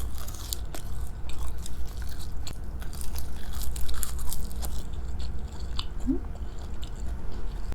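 Crisp nori seaweed sheets crackling and crunching as they are bitten and chewed. The run of crackles is dense at first and thins out about five seconds in.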